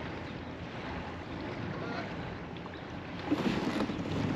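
Steady wind and small waves lapping against a fishing kayak. About three seconds in, louder rustling and clicking as the angler handles the rod and cranks a spinning reel.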